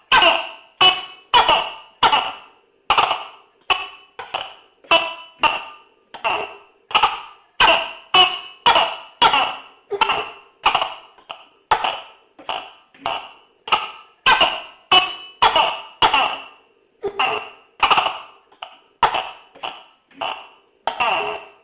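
Tokay gecko (tokek) calling over and over in a long, even series of short, sharp, loud calls, about two a second.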